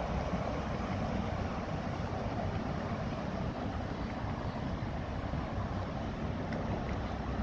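Steady wind noise on the microphone: an even, rumbling rush with no distinct events in it.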